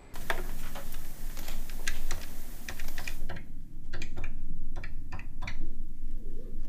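A steady hiss of street ambience for about three seconds, then a quieter room and a run of about a dozen separate sharp clicks: the buttons of a desk telephone keypad being pressed one by one to dial a number.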